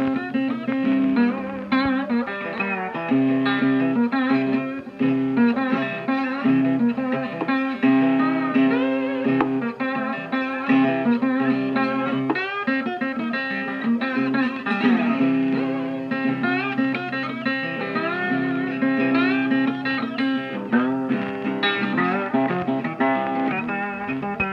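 Blues guitar music: plucked guitar lines with bent notes over a steady bass pattern.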